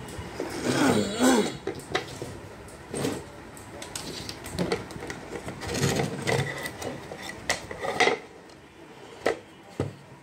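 Knocks, clicks and clatter of a small device box and its lid being handled and opened on a workbench, with a short wavering tone about a second in.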